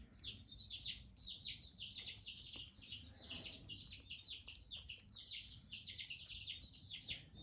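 Many small birds chirping together: a dense, continuous chorus of short, high, downward-sliding chirps, several a second and overlapping.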